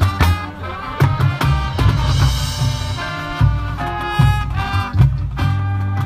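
Marching-band music: brass playing held chords over heavy low notes, with several sharp drum hits.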